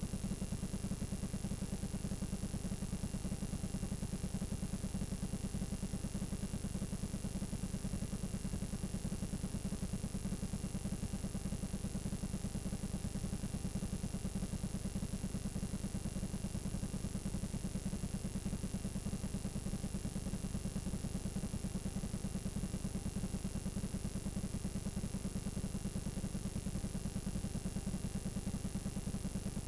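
Steady low buzz and hiss of a blank stretch of videotape playing back, with a faint steady high whine on top.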